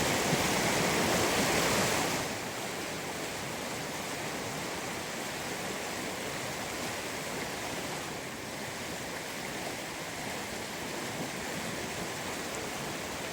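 Steady rushing water noise, louder for the first two seconds, then dropping abruptly to a slightly lower steady level.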